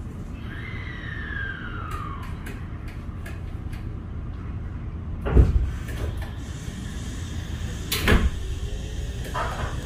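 Interior running sound of a Kintetsu 23000 series express train with renewed traction equipment: a steady low rumble, with the inverter's modulation whine gliding down in pitch over the first two seconds. Two loud knocks come about halfway and about three seconds later, and a low whine starts rising near the end.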